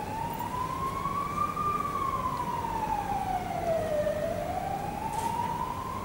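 Emergency vehicle siren in a slow wail. Its pitch rises to a peak about a second and a half in, falls until about four seconds in, then climbs again.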